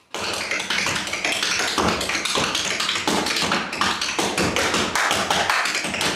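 Tap dancing: metal taps on tap shoes striking a hard floor in a fast, unbroken run of sharp clicks that starts suddenly.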